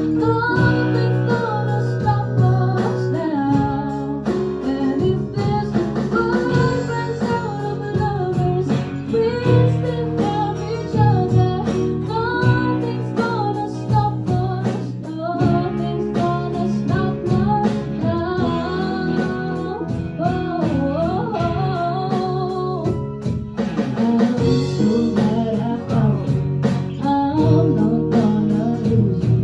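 A band playing a song live in rehearsal: a singer carries a melody over guitar accompaniment and a steady beat.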